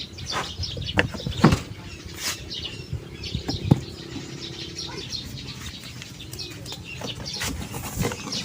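Scattered clicks and knocks of hands working the exhaust fan's housing open, over a steady background of birds chirping. A low hum runs for a few seconds in the middle.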